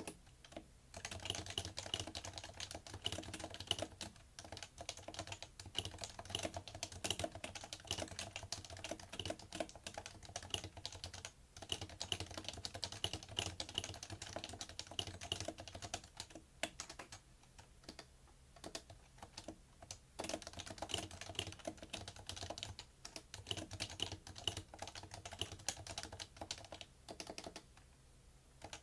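Typing on a PFU Happy Hacking Keyboard Professional2 with Topre capacitive switches: a rapid, continuous run of keystrokes that breaks off briefly now and then.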